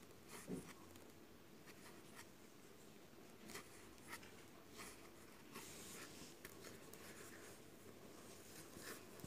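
Near silence with faint scratching and small ticks of a crochet hook pulling yarn through stitches.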